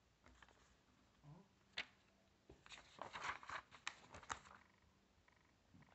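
Faint rustling handling noise, with a sharp click a little under two seconds in and a denser run of rustling and scraping from about three to four and a half seconds in.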